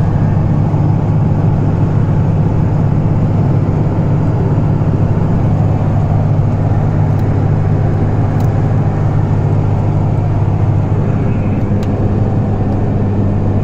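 Steady drone of a Cummins diesel engine with road noise, heard from inside the cab of a Ford pickup while driving at an even speed.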